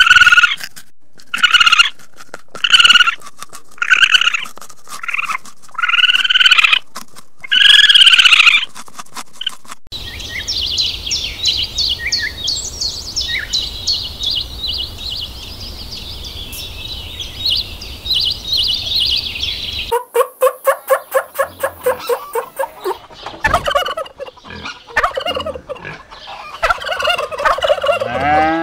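Three animal sounds in turn: first a loud call repeated about once a second, then a small bird's fast, high chattering song, then a wild turkey tom gobbling in rapid rattling bursts.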